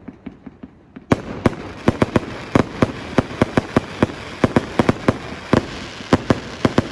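Aerial fireworks going off overhead: a few faint crackles, then from about a second in a rapid run of sharp bangs, roughly four a second.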